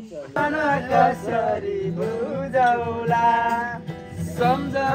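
A Nepali song, a voice singing over instrumental backing, with one note held for about a second midway.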